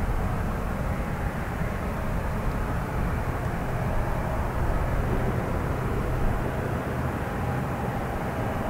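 ATR 42 turboprop's engines running at ground idle: a steady drone with a faint even whine on top.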